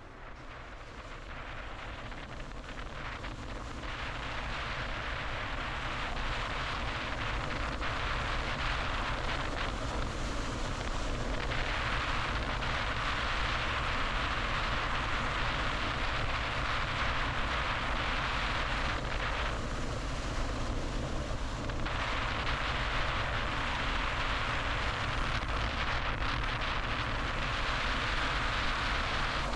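Road noise of a car driving on a freeway: steady tyre and wind noise over a low rumble. It grows louder over the first few seconds, then holds steady, with the hiss swelling twice for several seconds at a time.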